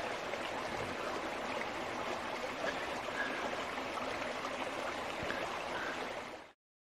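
Running water of a stream, a steady rush that cuts off abruptly near the end.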